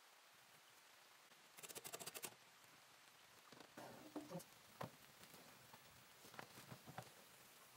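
Mostly near silence with faint clicks: a quick rattle of clicks about two seconds in, then scattered light metallic knocks and clicks as a metal baking tray is slid out of a wood-stove oven and set down.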